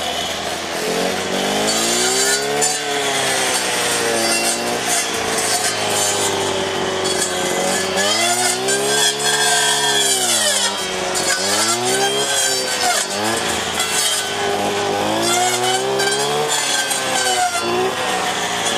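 Strimmer running while cutting woodland undergrowth, its engine pitch repeatedly rising and falling as it is throttled up and eased back, with several deep dips in the middle.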